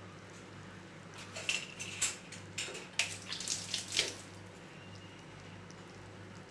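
Thick fish curry boiling in a clay pot, popping irregularly for about three seconds from about a second in, over a steady low hum.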